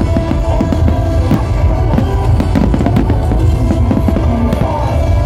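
A fireworks display set to loud show music with heavy bass. Many short firework bangs and crackles run through the music.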